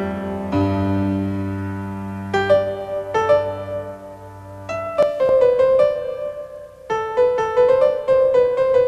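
Piano music: a held chord that slowly fades, then a run of quicker notes from about five seconds in.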